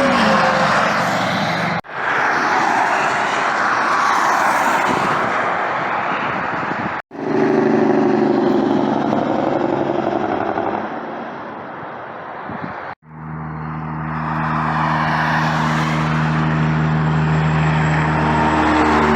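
Trucks and other traffic passing on a highway: tyre and engine rush, with a steady engine drone in the later part. The sound breaks off abruptly three times and picks up again at once.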